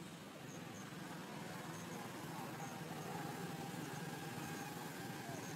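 Outdoor ambience: a low, steady rumble like a distant motor vehicle, growing slightly louder toward the end, with short high insect chirps now and then.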